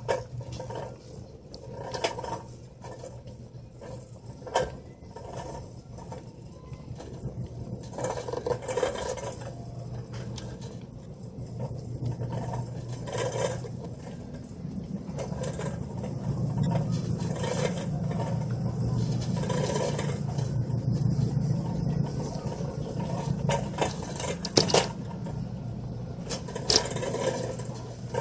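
Shopping cart rolling across a smooth store floor: a steady low rattle from its wheels and wire basket, louder for a while past the middle, with a few sharp clacks.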